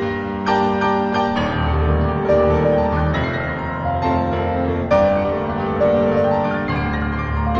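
Background piano music, a steady run of notes with a sustained low accompaniment.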